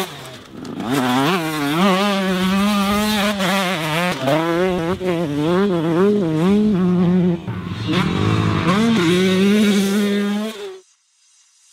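Motocross bike engine revving hard, its pitch swinging up and down quickly with the throttle. It cuts off abruptly about a second before the end.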